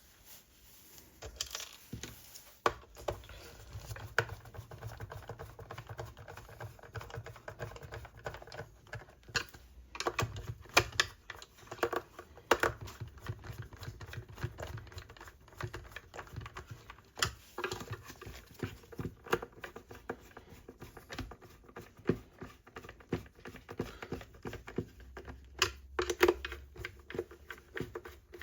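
Irregular clicks and taps of small plastic radio casing parts and screws being handled and fitted together by hand during reassembly.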